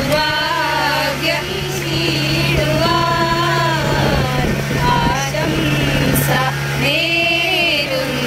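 Women singing a Malayalam song, their voices rising and falling in a melody with short breaks between phrases, over a steady low hum.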